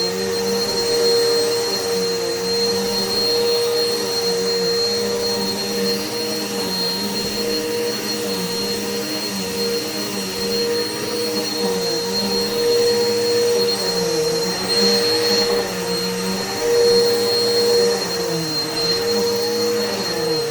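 Vacuum cleaner running steadily, with a motor hum and a high whine. The pitch of its hum dips briefly now and then.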